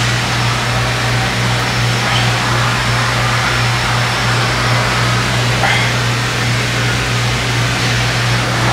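A steady mechanical hum with a constant hiss over it, the same level throughout.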